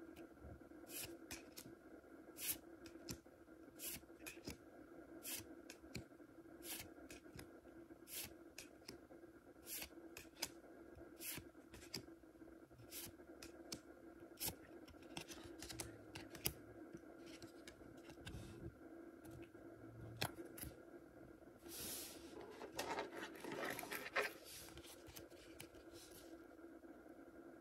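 Pokémon trading cards handled and flipped one at a time, a short card snap or slide about once a second, with a longer rustle of cards being shifted a little after 22 seconds. A faint steady hum underneath.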